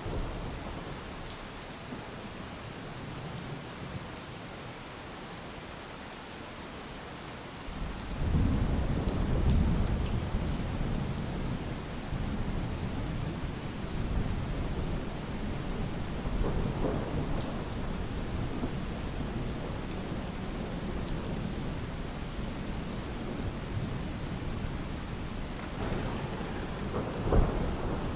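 Steady rain falling, with a low roll of thunder swelling in about eight seconds in and rumbling on, and a sharp thunderclap near the end.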